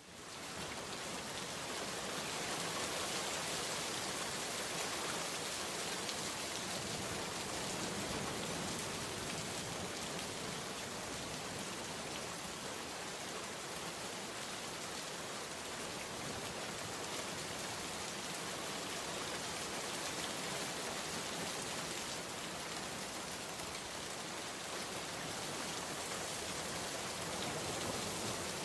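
Heavy rain falling on standing floodwater over concrete: a dense, steady hiss of drops striking the water surface, heard close to the water. It swells up quickly in the first moment, then holds even.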